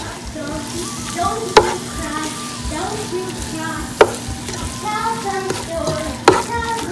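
Wooden spatula stirring chopped coriander and mint into frying onion masala in a non-stick pan, the mixture sizzling. The spatula knocks sharply against the pan three times, at about two-and-a-half-second intervals.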